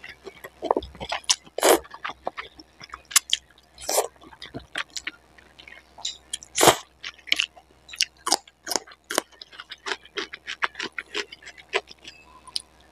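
Close-miked eating of spicy noodles: wet chewing and mouth clicks throughout, with several louder slurps as strands of noodles are sucked in.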